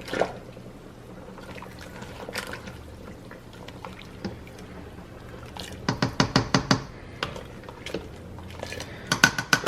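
Water in a large stockpot being stirred with a spoon, sloshing, with quick runs of knocking about six seconds in and again near the end.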